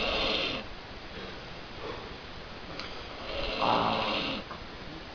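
A man with the flu snoring in his sleep. One snore trails off just after the start, and another snore comes about three seconds in and lasts about a second.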